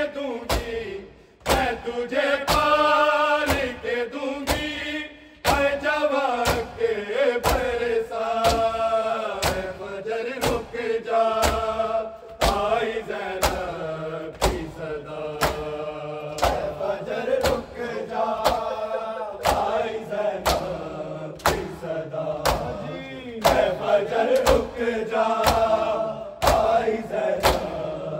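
Men's voices chanting an Urdu noha, a mourning lament, over a group of men beating their chests (matam) in time: a steady rhythm of sharp slaps under the singing.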